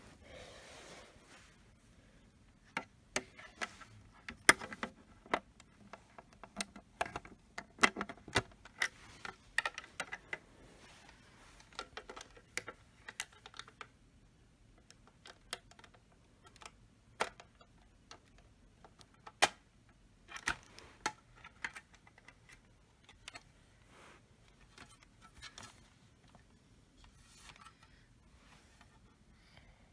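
Irregular clicks and taps of hard plastic parts and a screwdriver as an EST Genesis ceiling speaker strobe is taken apart by hand. The clicks come thick and fast for the first half, then thin out to scattered taps.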